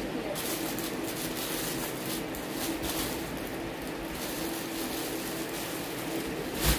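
Steady hum of an electric fan in a small room, with brief rustling of folded saree cloth being handled and one sharp thump just before the end.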